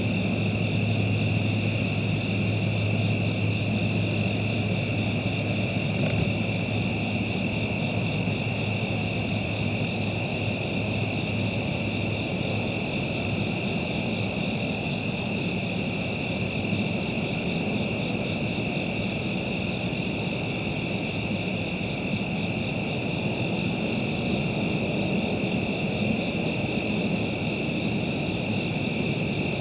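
A steady chorus of night insects, pulsing high shrill bands, over a low rumble. A low steady hum stops about twelve seconds in.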